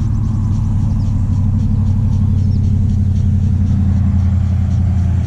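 A steady, loud, low mechanical drone from an engine or motor running continuously.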